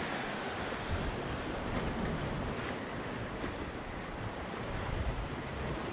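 Sea surf washing against rocks, with wind buffeting the microphone in uneven gusts and a few faint clicks.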